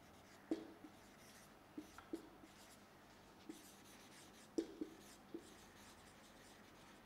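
Marker pen writing on a whiteboard: faint, scattered short taps and strokes of the tip against the board as words are written.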